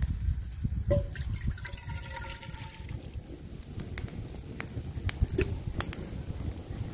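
Wind rumbling on the microphone, with a few sharp knocks of smashed ginger pieces dropped into an empty metal cooking pot; the first knock, about a second in, leaves the pot ringing faintly for a couple of seconds.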